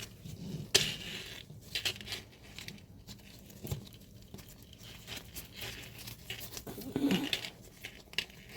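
Plastic bags crinkling and rustling as jewelry is handled and drawn out of the box, with scattered small clicks and taps.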